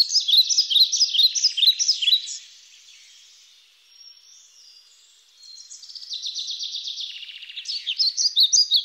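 Songbirds singing: a dense run of quick, high chirps and warbles that fades about two seconds in, then trilling song building back up from about five and a half seconds in.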